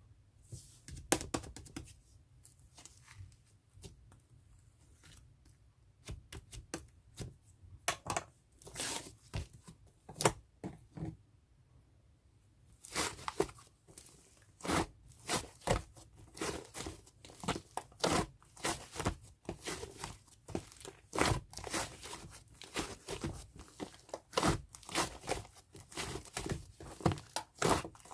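Fluffy white slime-clay (cloud-style slime mixed with clay) being pressed, stretched and pulled apart by hand, giving crisp crackling and tearing pops. Scattered at first, the crackles turn dense and almost continuous about halfway through.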